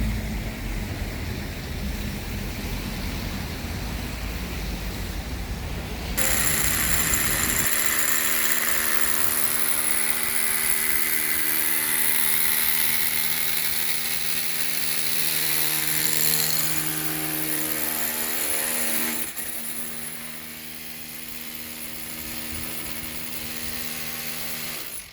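Construction-site machinery running: a low rumble, then a steady motor hum and whine with a bright hiss that sets in about six seconds in and eases about nineteen seconds in, cutting off abruptly at the end.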